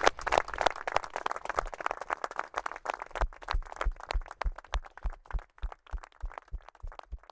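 A group clapping and applauding. From about three seconds in the clapping settles into a steady rhythm of about three claps a second, each with a low thump.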